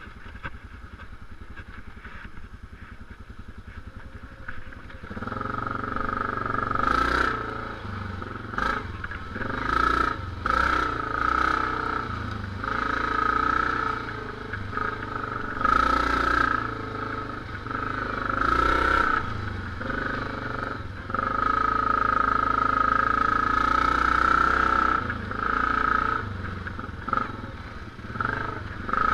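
Yamaha Grizzly ATV's single-cylinder engine running at low speed for about five seconds, then pulling harder as the quad rides along a dirt trail, rising and falling with the throttle. Short rushes of noise come and go over it.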